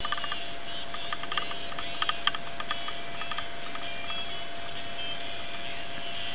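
Audio from a Smithsonian kit crystal radio set picked up off its crystal earpiece: a faint AM broadcast station under steady hiss and a constant whistle-like tone. A cluster of clicks and crackles comes about one to two and a half seconds in.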